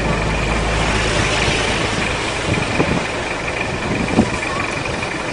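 Car engine idling with a steady low rumble, under a thin steady high whine, with a few light knocks about three and four seconds in.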